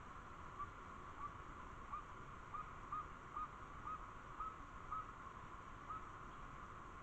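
An animal calling: about ten short, clipped notes at one pitch, roughly two a second and unevenly spaced.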